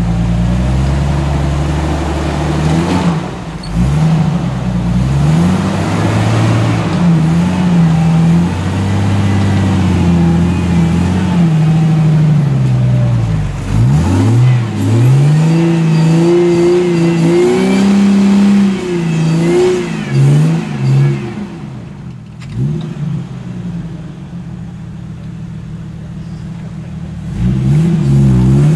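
Lifted Jeep Wrangler's engine revving up and down again and again under load as it crawls over rocks and clay. It drops to a quieter, steadier run for a few seconds about three-quarters of the way through, then revs hard again near the end.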